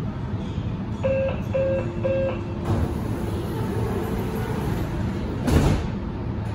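Subway train door-closing warning of three short beeps about half a second apart, then the sliding doors run shut and close with a thump about five and a half seconds in, over the carriage's steady low hum.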